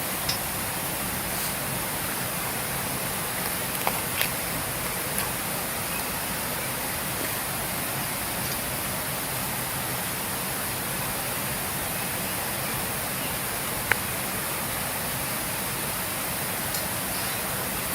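Steady rushing of flowing water, with a few brief sharp cracks, the clearest about four seconds and fourteen seconds in.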